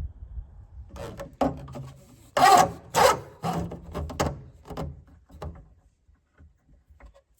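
Rubbing and scraping noises: a run of rough bursts, loudest about two and a half to three seconds in, trailing off into a few faint taps.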